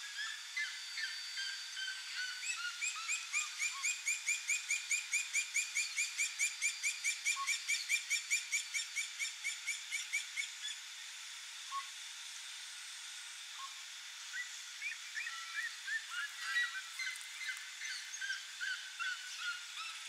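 A pair of red-legged seriemas singing: a long, fast run of loud repeated notes, about four a second, that builds up and stops abruptly about halfway through. After a short lull a second, more ragged series of calls starts up.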